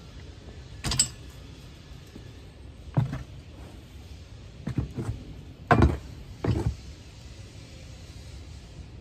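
A long-handled garden tool knocking and scraping, about six separate strokes at uneven spacing, the loudest a little past the middle.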